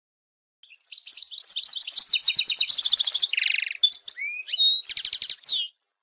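European goldfinch singing: a fast, rambling run of high twittering notes and rapid trills, with a buzzy stretch about three and a half seconds in, stopping shortly before the end.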